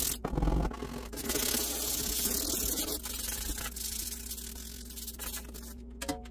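Small hand brush sweeping crumbs across a bare wooden drawer bottom, its bristles scraping the wood in quick strokes. It is loudest for the first few seconds, then fainter.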